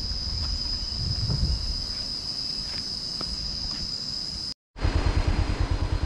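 Insects droning steadily at a high pitch over a low rumble. About four and a half seconds in, after a cut, a motorcycle engine idles with a fast, even putter.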